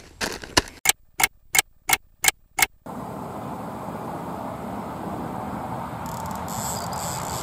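Electronic carp bite alarm beeping rapidly, about six evenly spaced beeps at roughly three a second, signalling a take on one of the rods. Then steady open-air background noise, with a faint high-pitched sound near the end.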